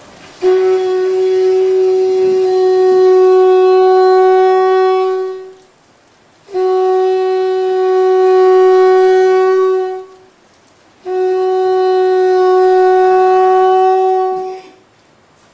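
Conch shell (shankha) blown as an auspicious ritual call, in three long, steady blasts of about four to five seconds each, with short breaks between them. Each blast holds one pitch.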